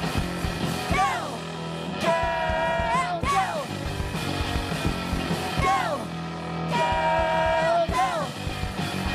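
A rock band playing live, with electric guitars, bass and drums. About four long held notes over the band each drop in pitch at the end.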